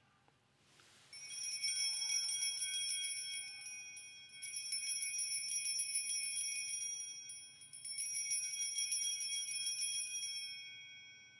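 Altar bells, a cluster of small handbells, shaken in three rounds of rapid jingling ringing, fading away near the end. The ringing marks the elevation of the chalice at the consecration.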